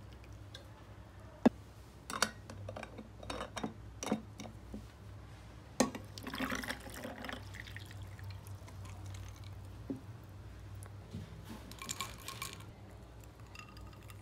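Barley tea poured from a stainless steel flask into a glass over ice cubes, with a run of sharp clinks and knocks in the first half, the loudest about six seconds in. A steady low hum lies underneath.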